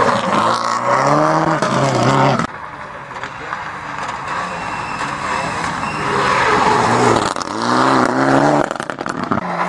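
Rally car engines revving hard through a hairpin: first a Subaru Impreza accelerating away, its pitch rising until it cuts off suddenly. After a quieter stretch, a Mitsubishi Lancer Evolution comes through, its engine climbing and dropping in pitch with the throttle and gear changes.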